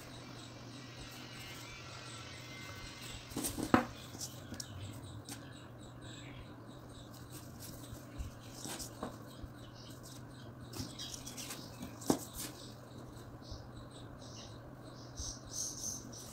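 Handling noise from yarn being looped and pulled around a twine-wrapped wire hanger ring: soft rustling and scratching with scattered clicks and taps as the frame shifts on the paper-covered surface, the sharpest a few seconds in and another about twelve seconds in. A low steady hum runs underneath.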